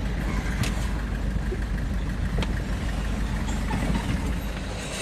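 Motor vehicle engine running steadily with a low rumble, with a couple of light clicks.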